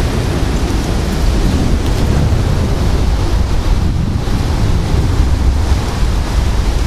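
Strong wind, about 40 miles per hour, ahead of a severe thunderstorm, blowing across the microphone: loud, steady wind noise.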